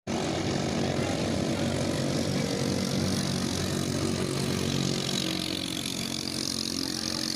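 Small longtail ces boat engine running steadily, a continuous engine drone.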